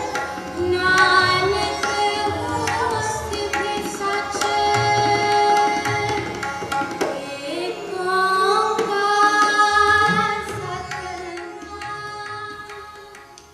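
Indian music: tabla strokes under a long-held, wavering melody, fading out near the end.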